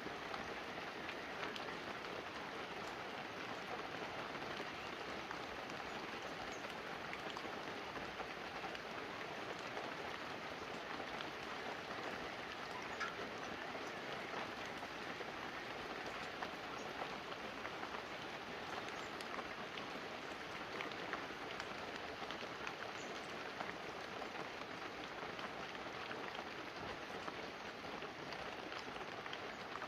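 Steady light rain falling on banana leaves and a roof, a constant patter with many small separate drop ticks.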